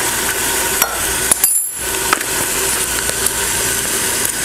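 Ground bison sizzling steadily as it browns in an Instant Pot on sauté, with a few light clinks of a metal measuring spoon against the spice jar and glass measuring cup. The sizzle cuts out briefly about a second and a half in.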